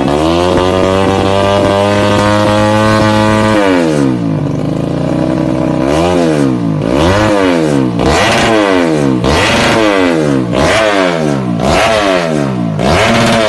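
Four-stroke motorcycle engine revving through a Norifumi GTX-PRO titanium carbon racing exhaust. It is revved up and held high for about three and a half seconds, then drops back, then gets a string of quick throttle blips about once a second.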